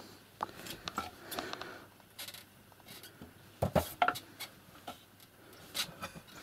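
A cat play-fighting with a hand on a blanket-covered bed: scattered light taps, scratches and scuffles, with two louder thumps a little past halfway.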